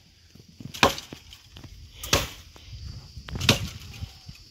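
A hand-held blade chopping into the base of a green bamboo culm: three sharp strikes, about one and a third seconds apart.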